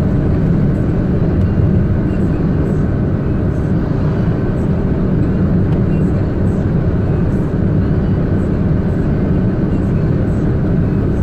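Steady engine and road noise of a delivery vehicle driving, heard inside the cab.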